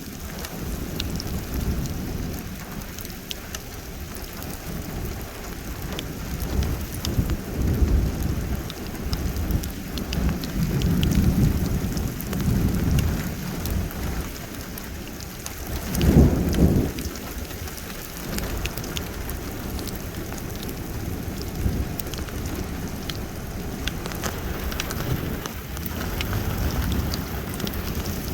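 Steady rain pattering, with thunder rumbling several times, loudest about sixteen seconds in.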